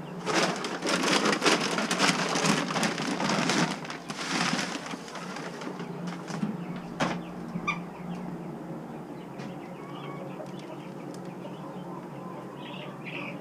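Poultry in a barn pen flapping their wings in a noisy, fluttering rush for about four seconds, with a shorter burst just after. A sharp knock follows, then soft scattered peeping calls.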